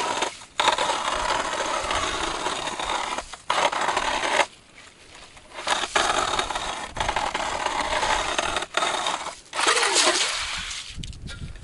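Steel ice auger blades cutting and grinding through lake ice, widening a fishing hole: a loud crunching scrape in several long spells with short breaks, fading out near the end.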